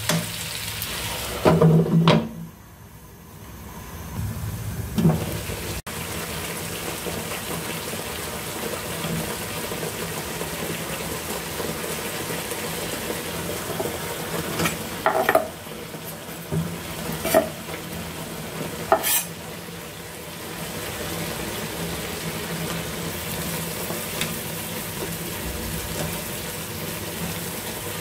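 Pig lung pieces bubbling and sizzling in broth in a frying pan, a steady frying noise, with knocks of wooden chopsticks stirring near the start. About halfway, sliced tomatoes go into the pan off a cutting board with three sharp knocks.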